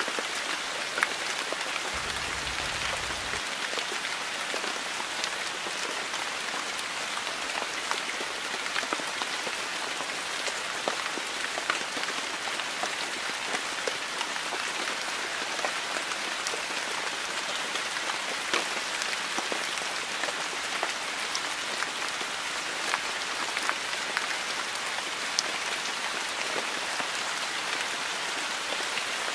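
Steady hiss with many small scattered ticks and crackles, even throughout, with a brief faint low rumble about two seconds in.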